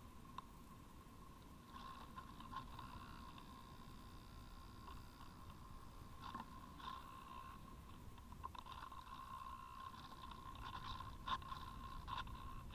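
Wind rushing past a camera carried aloft by a Parkzone Radian Pro electric model glider in flight, with a faint steady high whine and a few short ticks, the loudest late on.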